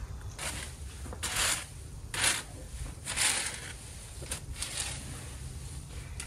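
Dry fallen leaves being raked on a patio: about six short scratchy strokes, the loudest around two and three seconds in, over a low steady rumble.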